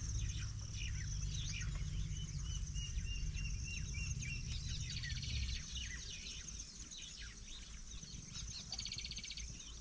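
Wild birds calling: many quick down-slurred chirps, a run of about ten short repeated notes in the middle, and a buzzy rattle twice.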